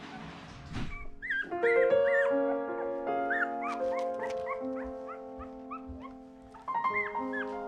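Litter of eleven-day-old miniature Australian cattle dog puppies giving many short, high, rising-and-falling squeaks and whimpers over background music with long held notes.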